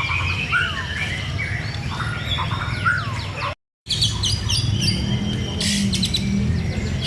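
White-rumped shama singing in full song: a string of whistled notes swooping downward, then, after a brief dropout to silence just past halfway, rapid repeated high chattering notes. A low rumble runs underneath.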